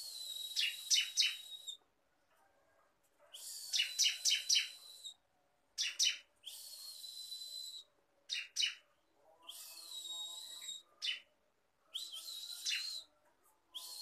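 Caged bar-winged prinia (ciblek) calling in a series of high, scratchy phrases about a second long, some with quick ticks, repeated about six times with short pauses between them.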